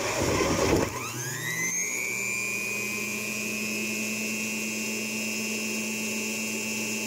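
Electric juicer grinding fruit pushed down its feed chute for about the first second. Its motor then speeds up, the pitch rising into a steady high whine as it spins freely with the load gone.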